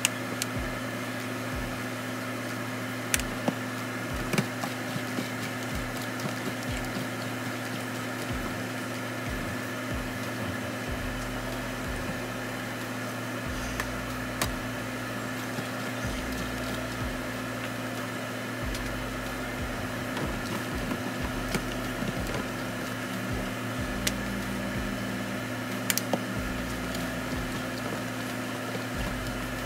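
Steady hum of kitchen appliances, broken by a few sharp clicks and taps from spice shakers and a plastic bowl being handled in a steel sink.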